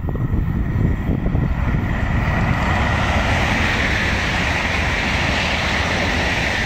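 Renfe AVE high-speed train passing at speed on a high-speed line, a hissing rush of air and wheels on rail that builds from about a second and a half in and stays loud as the train goes by.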